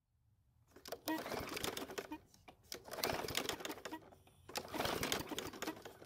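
Yard Machines push mower's small engine pull-started three times with the recoil cord, each pull a clattering crank of about a second. The engine turns over but never fires: it will not start on its own, a fuel-system problem.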